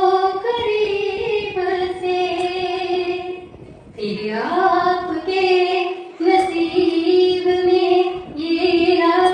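A young female voice singing a slow song in long held notes, phrase after phrase, with short pauses for breath between phrases.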